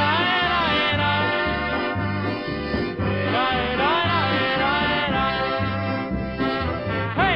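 Polka band music from a vinyl LP: a steady two-beat bass alternates notes about twice a second under quick melodic runs, with the top end cut off as on an old record transfer.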